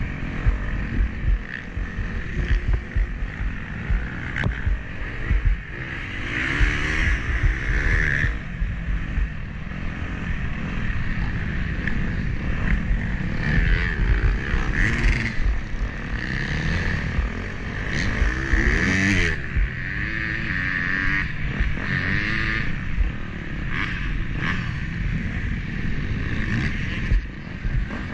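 Motocross dirt bike engine revving up and falling back repeatedly as it is ridden, heard from an on-board action camera. Under it runs a dense, rough low rumble with many small knocks.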